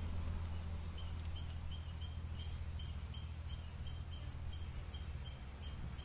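Short high chirps from a small animal repeat evenly, nearly three a second, over a steady low hum.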